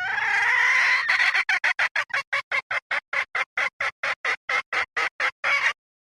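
Red junglefowl hen calling: one drawn-out call rising in pitch, then a fast, even run of short clucks, about four or five a second, that stops shortly before the end. This is the call of a decoy hen, used to lure wild junglefowl.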